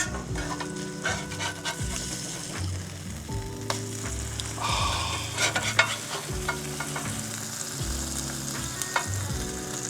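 Smashburger patties sizzling on the hot grill while a spatula scrapes and clicks against the cooking surface as they are turned.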